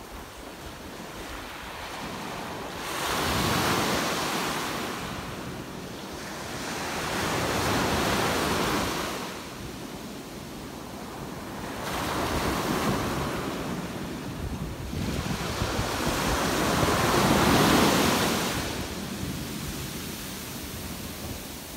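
Ocean waves breaking and washing up a sandy beach: four surges of surf, each rising and falling away, about every four to five seconds, the loudest one near the end.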